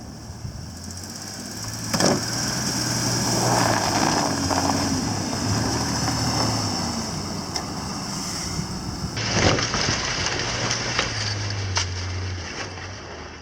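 Pickup truck engine running, its pitch rising and falling as it revs, with a couple of sharp knocks; the sound changes abruptly twice.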